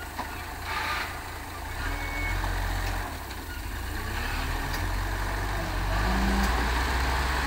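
TCM 45 wheel loader's diesel engine running under load while it tips a bucketful of soil into a dump truck, getting louder in the second half.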